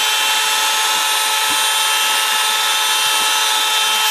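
Dremel rotary tool with a cut-off disc running at high speed, a steady high whine, grinding a new screwdriver slot into a stripped steel screw head.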